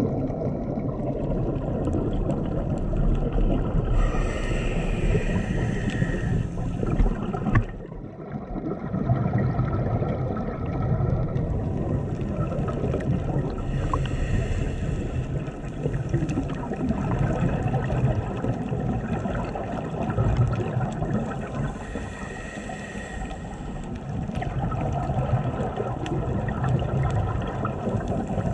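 Underwater scuba-diving sound: a diver breathing through a regulator, with several long hissing breaths and a steady gurgling rumble of exhaled bubbles, muffled through the camera's housing.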